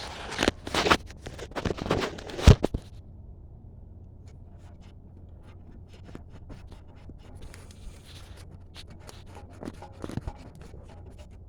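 Close handling noises of hands working a wheel-speed sensor wire into its holding clip: scraping and rustling with a sharp knock about two and a half seconds in, then faint ticks and another brief scrape near the end.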